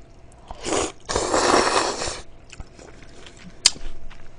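A person slurping noodles from cold spicy broth: a short slurp, then a longer, louder one about a second in, followed by quieter chewing with small wet clicks.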